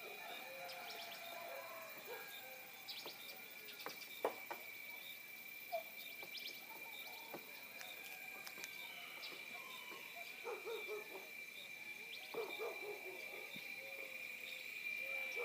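Morning birdsong in the countryside: scattered chirps and short low hooting calls, over a steady high-pitched drone.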